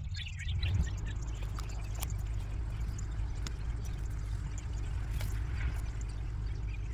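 Steady low rumble, with light rustling and a few faint clicks as plants are handled.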